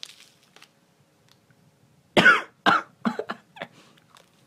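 A person coughing: a faint breath drawn in at the start, then a fit of about five coughs about two seconds in, each weaker than the last. The coughs are set off by inhaling the powder of a crushed Fizzler sweet.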